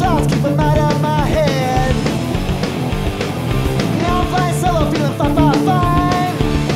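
Punk rock song played by a band of drums, bass and electric guitar, with a melodic lead line that slides and bends in pitch in two phrases: one at the start and one about four seconds in.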